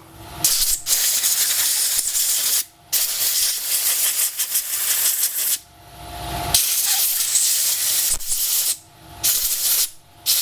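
Compressed-air blow gun hissing in several long blasts with short breaks between, blowing dirt off a lawnmower carburetor.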